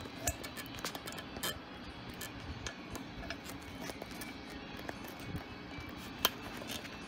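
Faint music in the background, with scattered clicks and knocks of the camera being handled and repositioned.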